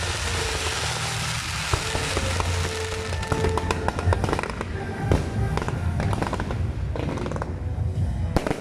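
Fireworks display: fountain fireworks hissing, then dense crackling and popping from about three seconds in, with music playing underneath.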